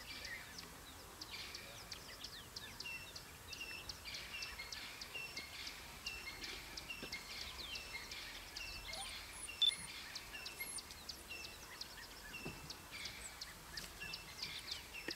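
A steady stream of high-pitched chirping and twittering calls, several every second, with one short sharp click about ten seconds in.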